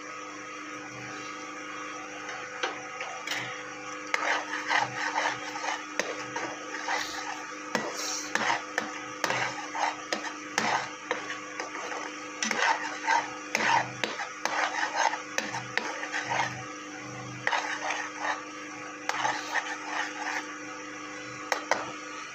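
Metal ladle stirring and scraping masala in a metal frying pan, a run of short scrapes and knocks a few times a second starting about four seconds in, over a steady background hum.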